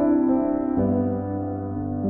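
Background music on a keyboard, with slow held notes and a low bass note entering just under a second in.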